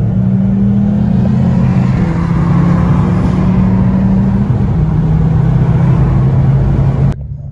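Straight-piped Ford Focus ST's exhaust running loudly at road speed, heard from inside the cabin, over the hiss of tyres on a wet road. Its note drops a step a little past halfway, and the sound cuts off abruptly near the end.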